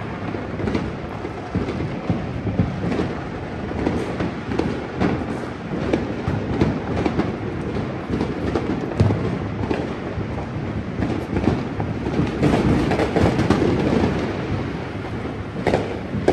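Continuous rumble and crackle of many fireworks and firecrackers going off around the neighbourhood, with sharper bangs scattered through it and a loud one about nine seconds in.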